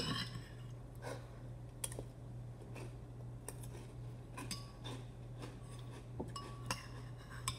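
Spoon clinking against a cereal bowl while scooping cereal: separate light clinks about once a second, a few with a brief ring. A steady low hum runs underneath.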